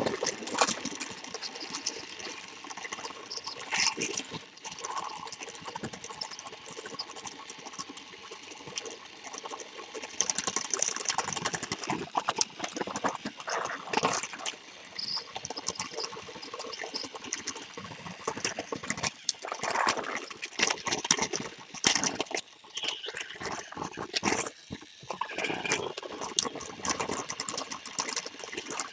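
Motorized plastic toy train running along plastic track, its motor and wheels making an irregular rattling and clicking, heard close up from a webcam mounted on the train.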